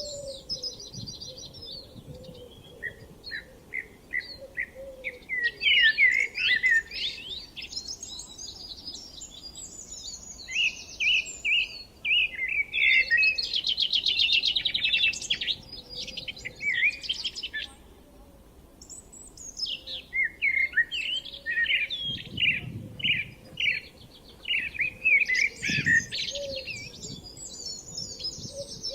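Songbirds singing outdoors in spring, phrase after phrase of quick chirps and trills with short pauses between songs, over a faint low background.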